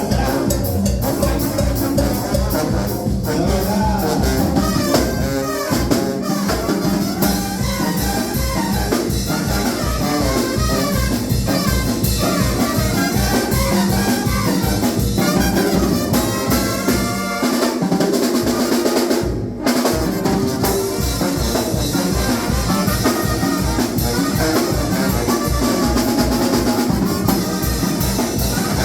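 Banda-style brass band music, with trumpets and other brass over drums keeping a steady beat. The music cuts out briefly about two-thirds of the way through, then comes straight back.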